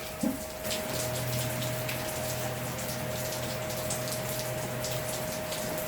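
Heavy rain pattering down, a dense steady hiss with many small sharp drop hits. A steady mid-pitched tone runs underneath, and a low hum comes in about a second in and drops away near the end.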